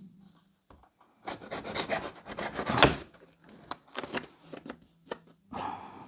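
A letter opener scraping and cutting at the kit box to open it: a run of rasping strokes, the loudest near three seconds in, then a few lighter clicks and taps of handling the box.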